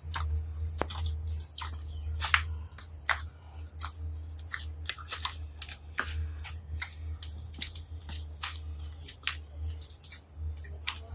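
Hands kneading whole-wheat atta dough in a metal bowl, the hands wetted: irregular sticky clicks and presses, several a second, over a steady low hum.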